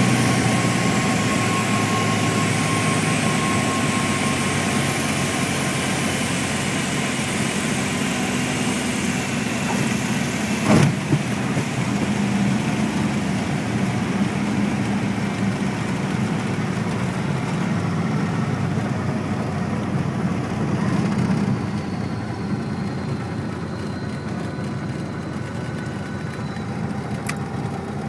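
Light aircraft's engine running steadily as heard from inside the cockpit during the final approach and landing, a constant low hum with cabin noise. A single sharp knock about eleven seconds in, and the engine noise drops somewhat about two-thirds of the way through.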